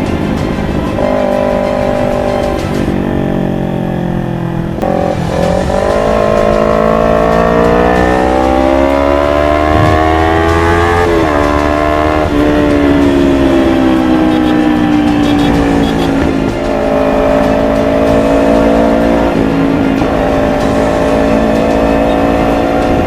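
Kawasaki Ninja 250 FI parallel-twin engine running through a full-system Akrapovic GP exhaust while riding. The pitch climbs under throttle for several seconds, drops sharply about halfway through, then eases down and holds steady.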